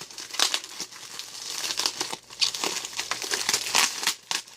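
Packaging being pulled open by hand, the wrapping crinkling and tearing in irregular crackly bursts.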